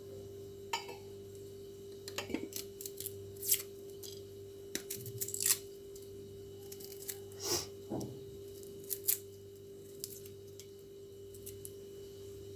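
Kitchen knife peeling garlic cloves: irregular short clicks and scrapes of the blade, with the papery skin tearing. A steady hum runs underneath.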